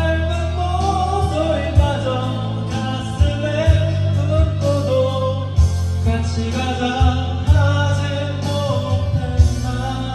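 A song: a singing voice over a band with bass and regular drum hits.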